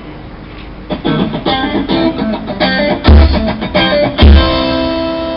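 Rock band sound-checking through the stage PA: electric guitar strums chords from about a second in, with two loud accented hits with a deep bass thump about three and four seconds in. The last chord is left ringing and slowly fades.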